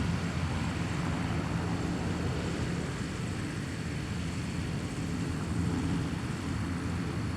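Bombardier Challenger 600 business jet's turbofan engines running: a steady rumble with a thin, steady high whine above it, swelling slightly again near the end.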